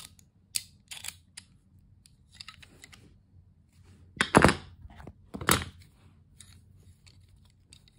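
Steel groove joint pliers being handled and adjusted: short metallic clicks from the quick-release slide and jaws, with two louder, longer clacks a little past halfway.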